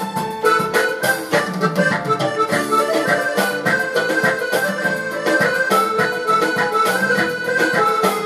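Yamaha OR700 arranger keyboard playing a melody of held notes in its accordion voice over a steady drum accompaniment pattern.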